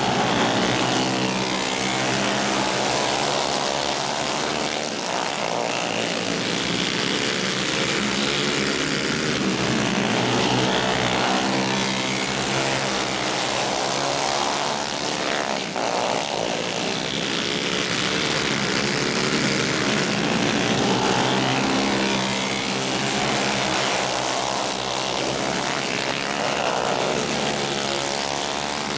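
A pack of alcohol-fuelled racing karts' engines running hard together, the pitch of several engines rising and falling in overlapping sweeps as they accelerate down the straights and back off through the turns.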